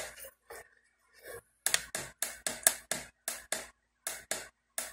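Buttons on a plastic elephant nightlight projector clicking as they are pressed over and over, about three or four times a second from about two seconds in, switching its nightlight off.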